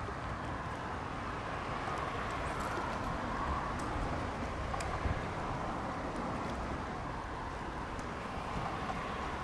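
Steady traffic noise from the bridge overhead, mixed with wind rumbling on the microphone, and a few faint ticks.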